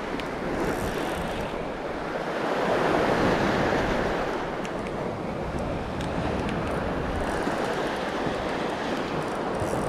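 Surf washing in over a pebble beach, swelling loudest about three seconds in, with wind noise on the microphone.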